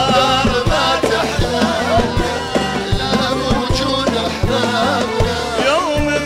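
Live Arabic folk band playing a Jordanian folk song: darbuka, frame drums and a drum kit keep a quick, even beat under a wavering melody line, with hand clapping.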